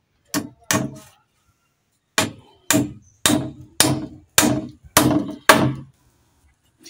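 Hammer blows on a wooden eucalyptus pole: two quick strikes, a pause of about a second, then seven steady strikes at about two a second, each ringing briefly.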